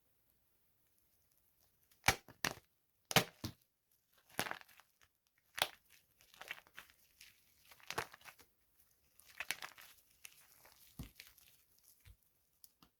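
Dry soap being crushed: a series of sharp cracks and snaps, then softer, denser crumbling and crackling as the pieces break apart.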